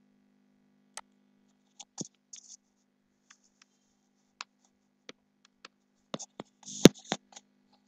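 Typing on a computer keyboard: separate, irregular key clicks, with a quicker, louder run of them near the end.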